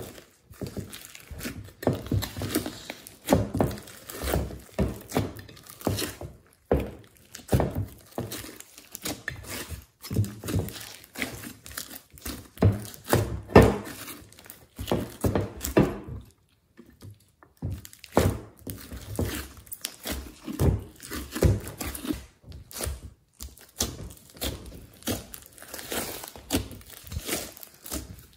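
Hands squishing, stretching and folding a large lump of glossy slime mixed with foam beads: irregular sticky squelches, pops and dull thunks, several a second, with a short pause about halfway through.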